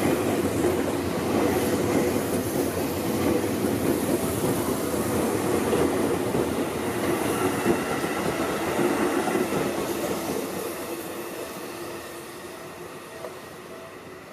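Yellow Seibu Railway electric commuter train running close past, its wheels on the rails giving a dense rumble with a steady whine over it. The sound fades steadily over the last four seconds or so as the train draws away.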